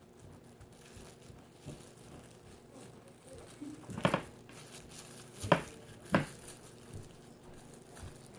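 Plastic wrap crinkling as it is handled, with three sharp clicks about four, five and a half, and six seconds in.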